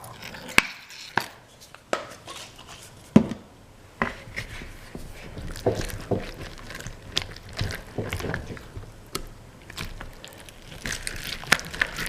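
Spatula stirring thick, sticky glue slime in a bowl, with irregular clicks and taps of the spatula against the bowl.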